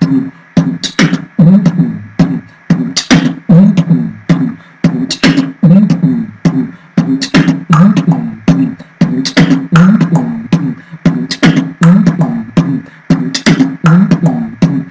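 Human beatboxing: one person's mouth making a layered beat of several sounds at once. Sharp kick, snare and hi-hat clicks run over a continuous low hum, and the pattern repeats about every two seconds.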